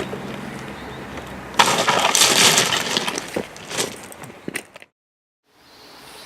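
A steady low machine hum, then about a second and a half in a sudden loud crash with breaking and clattering that dies away over about three seconds before the sound cuts out.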